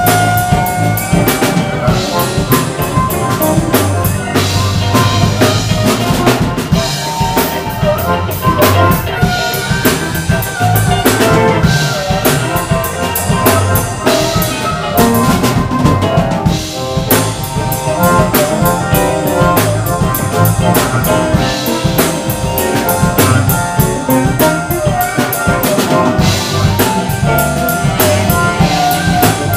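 Live blues band playing: a drum kit keeps a steady beat under electric bass and electric guitar.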